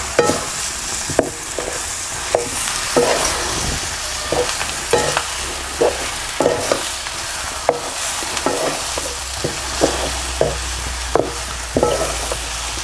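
Stuffed brinjals and masala sizzling in an oiled kadhai while a wooden spatula stirs them. The spatula scrapes and knocks against the pan about one to two times a second over a steady frying hiss.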